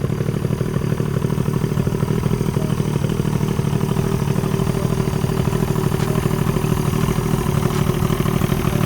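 Mercury outboard motor running steadily with a rapid, even pulse.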